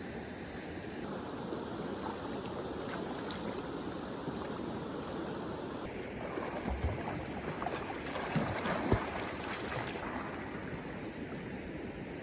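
Steady rushing of water, heavy rain or a swollen stream, with a few light knocks or drips in the middle; the noise changes character abruptly a couple of times.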